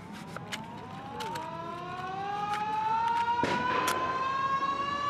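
A mechanical siren winding up, its wail rising slowly and steadily in pitch, with scattered sharp cracks of fireworks. A short rasp of a match being struck comes about three and a half seconds in.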